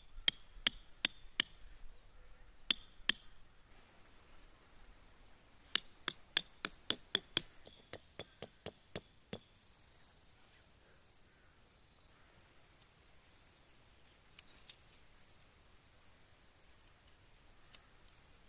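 A hammer driving tent stakes into the ground: sharp clinking strikes in quick runs of about three a second, with short pauses between runs, stopping about nine seconds in. A steady high chirring of insects sets in about four seconds in and continues.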